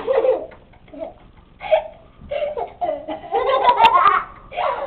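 A child laughing in repeated bursts, loudest a little over three seconds in.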